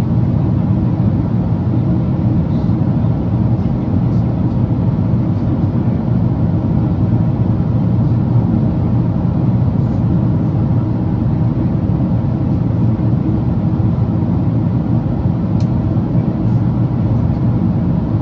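Steady low rumble of engine and airflow noise heard inside the cabin of a Boeing 777-300ER, whose two GE90-115B turbofans power it.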